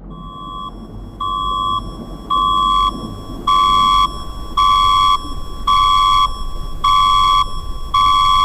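Emergency alert beeping: a high electronic tone about half a second long, repeated about once a second, eight times. The beeps grow louder after the first three, over a low rumble.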